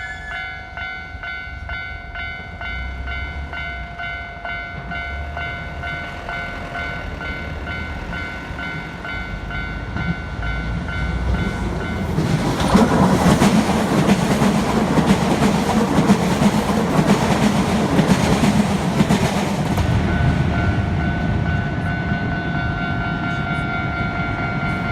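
Japanese railroad crossing warning bell ringing in a steady repeating kan-kan. About twelve seconds in, a train passes close by: its rumble and wheel noise cover the bell for about eight seconds, then the bell is heard again.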